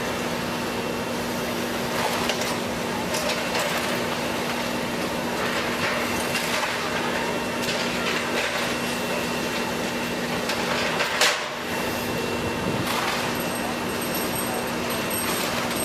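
Liebherr R944C excavator's diesel engine running steadily as it works a pile of demolition rubble, with debris clattering and crashing down at intervals and one sharp loud crash about eleven seconds in.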